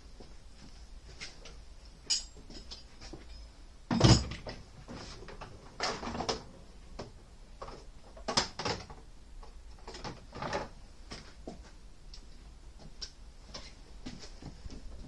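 Irregular knocks, clicks and clatter of lathe parts and tools being handled on a workbench, with a heavy clunk about four seconds in and smaller knocks every couple of seconds after.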